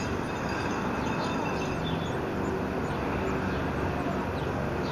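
Steady outdoor background rumble, with a few faint, thin, high chirps from baby birds in the nest.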